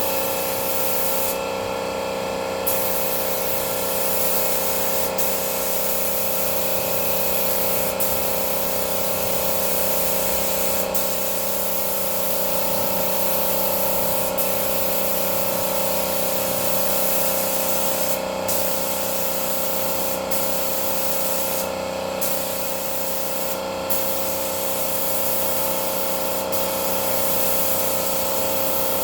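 Compressed-air paint spray gun hissing steadily as it lays sandable primer on. The hiss breaks off briefly a few times (about a second long near the start, short gaps later on) as the trigger is let off, with a steady hum underneath.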